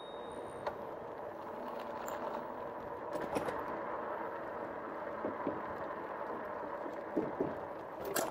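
Riding noise of a 2018 RadRover electric fat-tire bike: a steady hum from its hub motor and tyres rolling, with a short knock about three seconds in and another near the end as the tyres cross the footbridge's joints.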